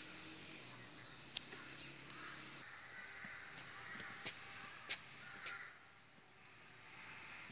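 A steady, high-pitched chorus of insects buzzing in a pine forest, with a few faint taps and clicks in the middle.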